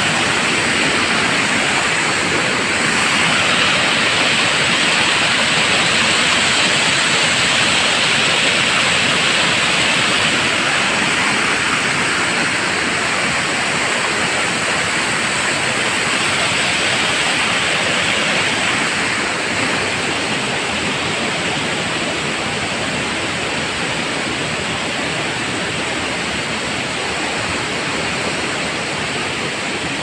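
Steady, loud rush of a waterfall about ten metres high, river water pouring down in an unbroken hiss-like roar, easing slightly about two-thirds of the way through.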